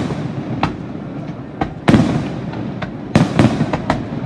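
Aerial firework shells bursting in a string of sharp booms, each trailing off in an echo. The two loudest come about two seconds in and just after three seconds in.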